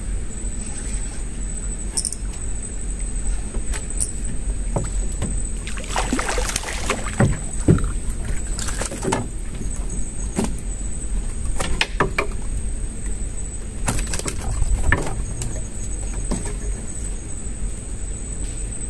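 Scattered knocks and clatters on a wooden boat as a hooked mangrove jack is brought aboard and handled. The densest cluster comes about six to eight seconds in, over a steady high whine and a low hum.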